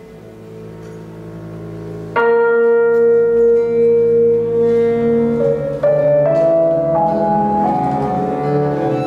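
Live ensemble playing slow experimental music: quiet low held tones, then about two seconds in a loud sustained note enters suddenly. From about halfway through, it steps upward through several held pitches.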